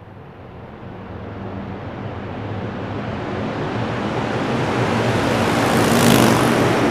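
Motorcycle engine running with a rush of air, growing steadily louder over several seconds and loudest about six seconds in.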